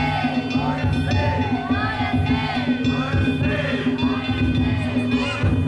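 Danjiri festival music, with drums beating an irregular low beat and sustained ringing tones over it, mixed with many voices shouting in the crowd.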